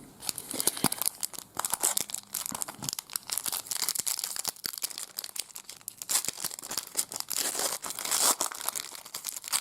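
Trading card pack wrapper being crinkled and torn open by hand: a dense, continuous run of sharp crackles.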